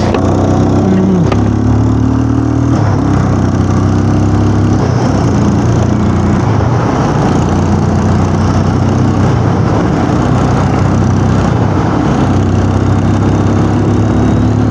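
Motorcycle engine running on the move, its pitch stepping up and down with the throttle, under a steady rushing noise.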